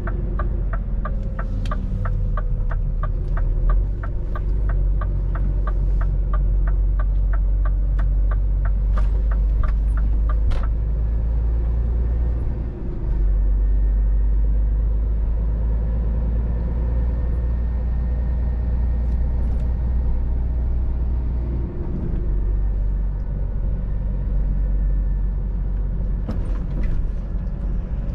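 Scania R500 truck engine running steadily, heard from inside the cab. For the first ten seconds or so, the turn-signal indicator ticks about three times a second, then it stops.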